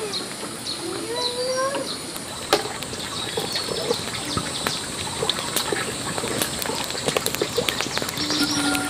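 Farmyard outdoor sound: a fowl gives one rising call about a second in, over small birds chirping, with a few sharp knocks through the middle.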